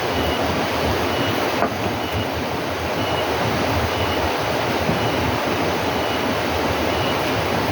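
Steady, loud rushing noise with no clear pitch. A faint, short, high chirp repeats roughly once a second over it.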